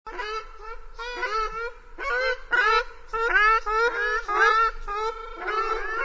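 Ruddy shelducks calling: a rapid series of repeated goose-like calls overlapping one another, loudest from about two seconds in until near the end.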